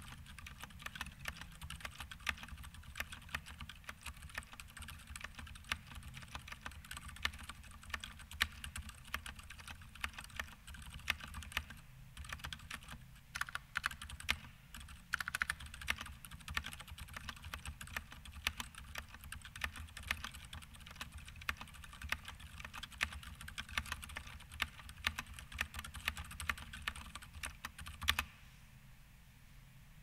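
Fast continuous typing on a Vortex VX8 mechanical keyboard fitted with unlubed Gateron Silent Brown switches, its stabilizers band-aid modded; a rapid, irregular stream of keystrokes that stops shortly before the end.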